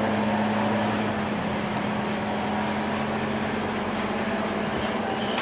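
Steady running noise of a single-deck city bus heard from inside the passenger cabin while it is driving: an even engine and drivetrain hum with road noise and a few faint rattles.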